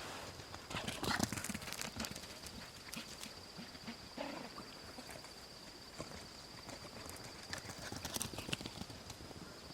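Irregular knocks and clatter, bunched about a second in and again near the end, over a steady high-pitched whine.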